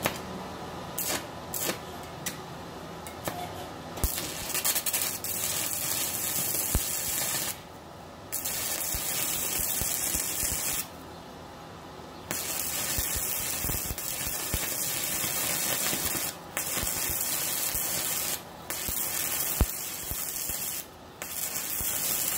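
Stick-welding arc from a 6010 rod on a Yeswelder MIG-205DS inverter welder: after a few scratching clicks as the rod is struck, a steady sizzling arc that breaks off briefly about five times. The welder expected this non-transformer machine to struggle with 6010.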